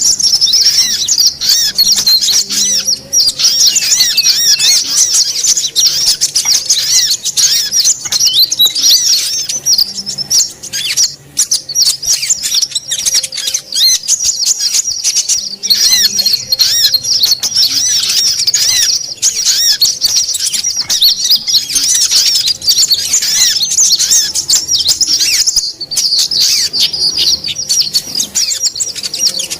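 Dense chorus of many small songbirds chirping and twittering at once, high-pitched and without pause. It is a mixed 'noisy birds' lure recording (suara pikat burung ribut) of the kind played to draw wild birds in.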